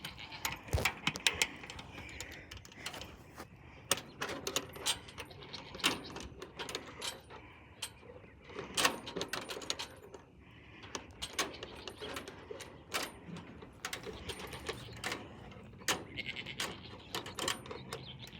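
Irregular sharp clicks and rattles, several a second at times, with no steady sound under them.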